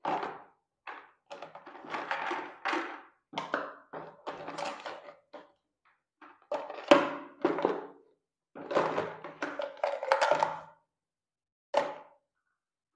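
Plastic toiletry bottles and containers knocking and clattering in a plastic basket as they are sorted by hand. The sound comes in irregular bursts of a second or so with short gaps, and the loudest knock comes about seven seconds in.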